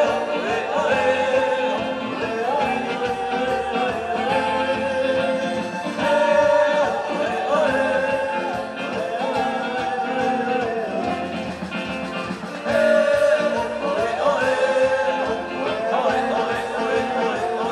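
Live band music: a woman singing a repeating melody in phrases of about two seconds, backed by electric guitar, keyboard and drums.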